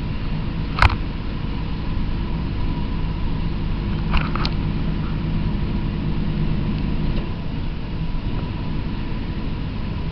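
Hino Profia tractor unit's diesel engine running steadily as the truck drives, with road noise, heard from inside the cab. A sharp click comes about a second in, and a brief rattle around four seconds in.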